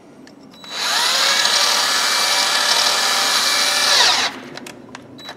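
Power drill spinning a thin twisted-wire brush inside the threaded bore of a tap wrench's knurled chuck: the motor spins up just under a second in, runs steadily for about three seconds, then stops.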